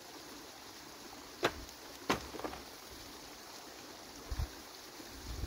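Two sharp knocks about half a second apart, then a fainter one, over a faint steady hiss, with a couple of dull low thuds near the end.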